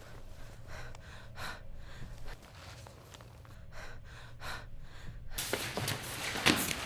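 A person breathing hard in short, gasping breaths. About five seconds in, a much louder rushing noise with sharp knocks starts.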